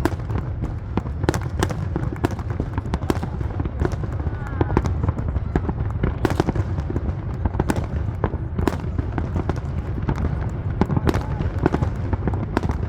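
Fireworks display: a fast, irregular string of sharp bangs, several a second, over a steady low rumble.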